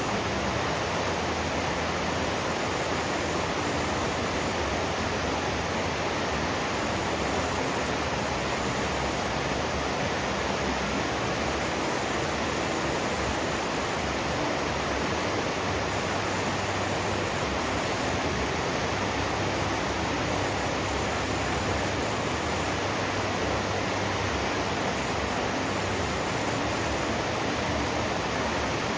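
River water rushing, a steady even rush that does not change.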